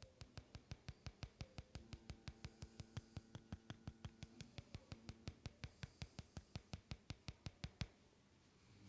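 Rapid, even percussive tapping by hands in a massage, about five sharp taps a second, stopping about a second before the end.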